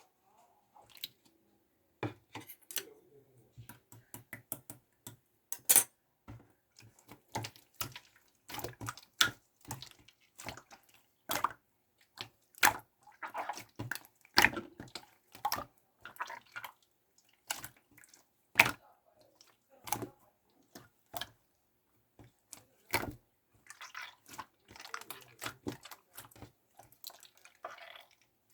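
Mint slime being squeezed and poked by hand, giving irregular wet clicks and pops in clusters.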